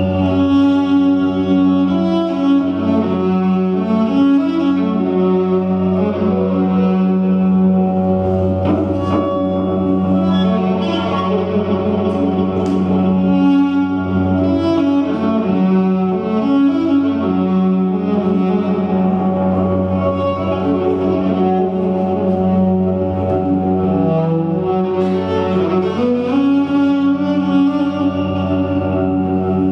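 Bowed electric cello playing a slow melody over a sustained low drone.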